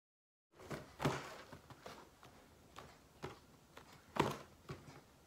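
A boxed item being handled and turned over in the hands: a string of irregular light knocks and soft rustles, the loudest about a second in and again about four seconds in.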